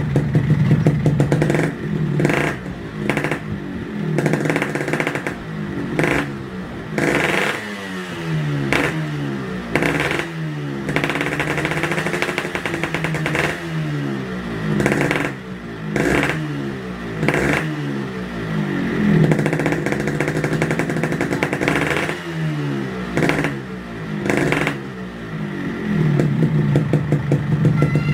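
Motorcycle engine with a combined RX King and Vespa exhaust, revved in repeated sharp throttle blips, its pitch falling back toward idle after each one.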